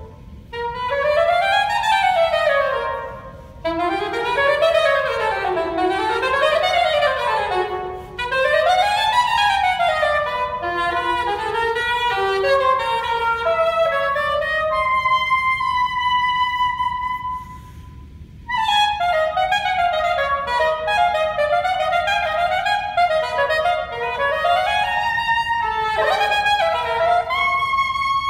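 Solo saxophone playing fast arpeggio runs that sweep up and down, broken by short breaths. About halfway through a long held note fades away, then quick repeating figures start again.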